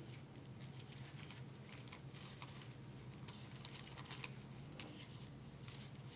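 Thin pages of a Bible being leafed through by hand, a run of soft papery ticks and rustles over a steady low hum.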